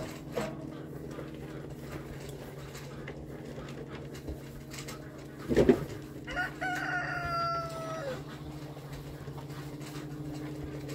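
A rooster crows once, a call of nearly two seconds that sags slightly in pitch, just after a sharp knock about halfway through.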